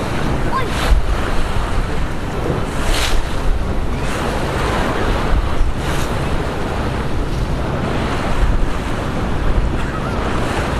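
Wind buffeting the microphone on board a small ferry under way, over a steady low rumble and rushing water, with a few brief louder gusts.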